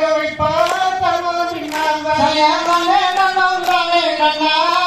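A voice singing a valli kummi folk song in long held notes that bend in pitch, with a few hand claps from the kummi dance.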